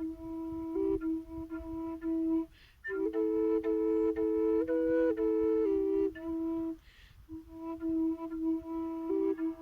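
Flöten des Herzens 'Panther' drone flute in E minor playing a slow, gentle tune over a steady low drone note. In the middle the melody climbs above the drone in stepwise notes while the drone holds. The playing breaks twice briefly for breath, about two and a half and seven seconds in.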